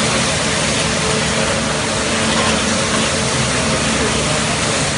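Automatic carpet washing machine running: a steady mechanical din with a hiss and a low hum, unchanging throughout.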